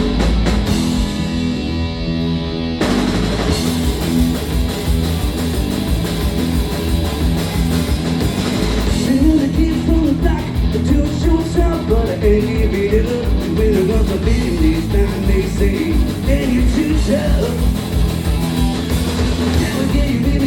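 Punk rock band playing live at full volume: distorted electric guitars, bass and a driving drum kit. The full band comes crashing in just under three seconds in.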